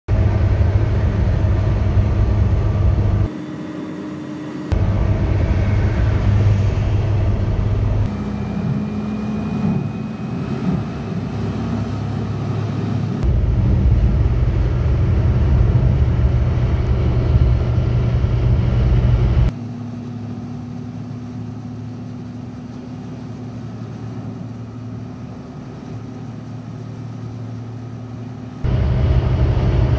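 Steady low engine and tyre rumble heard inside a car cruising at motorway speed. The level and tone step abruptly louder or quieter several times where separate clips are joined.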